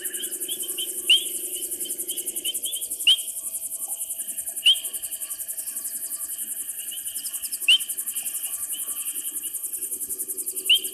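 Crickets trilling in a fast, steady, high pulsing chorus. Over it, a loud, short, sharply rising call repeats five times a couple of seconds apart, with softer small chirps in between; this is the unidentified odd call.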